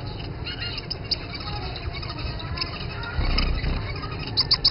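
Small caged finches chirping and calling, short high cheeps scattered throughout with a few brief curved call notes. A low rumble comes about three seconds in.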